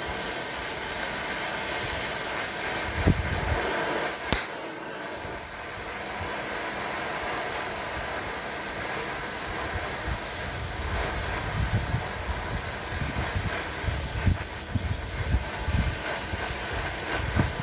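Gas torch flame hissing steadily while heating the old vise to free a part that turns hard. There is a sharp click about four seconds in, and low knocks and bumps from the work in the second half.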